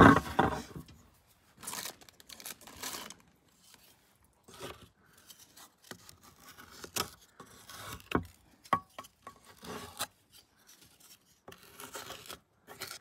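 Wooden slotted spatula scraping ground cookie crumbs out of the mouth of a hand-cranked metal meat grinder: a string of short, irregular scrapes and clicks of wood on metal and crumbs. A louder noise fades out in the first second.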